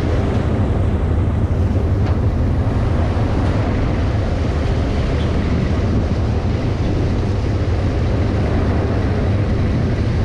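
Crew boat's engines running steadily as it holds alongside the jetty, churning the water at its hull, with a low rumble and wind buffeting the microphone.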